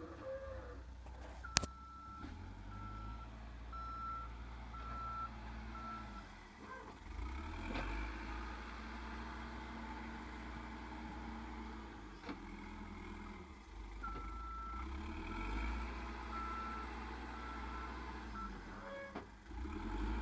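Backhoe loader's engine running steadily while its reverse alarm beeps at one pitch, about two beeps a second, in two bouts as it backs up. There is a single sharp knock about a second and a half in.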